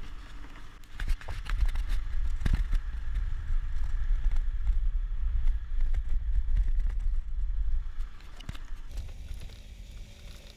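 Riding a motor scooter along a bumpy dirt lane: a steady low rumble of wind on the microphone with the small engine running, and scattered clicks and knocks. The rumble drops somewhat near the end.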